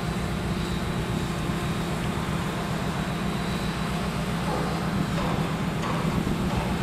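Large shipyard crane's machinery running with a steady low drone as it carries a suspended steel section.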